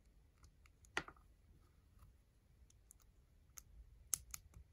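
LEGO plastic pieces clicking as they are handled and pressed together: one sharp click about a second in, then a quick run of small clicks near the end.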